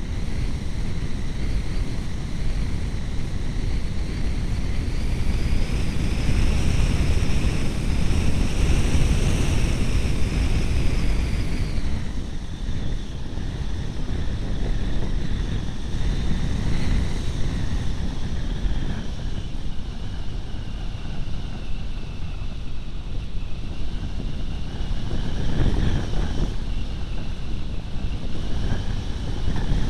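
Wind rushing over the microphone of an MD-80 camera riding on an RC glider in flight: a steady rush, with a faint high whine that rises in pitch, falls away about twelve seconds in, and climbs again near the end.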